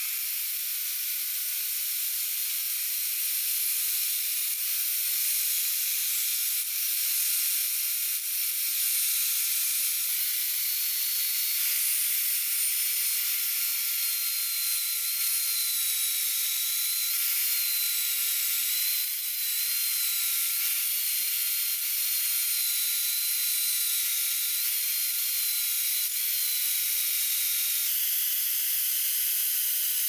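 Angle grinder with a flap disc grinding down the steel rotor of a washing-machine motor as it turns in a drill press: a steady, high-pitched hiss with a faint motor whine, unbroken throughout.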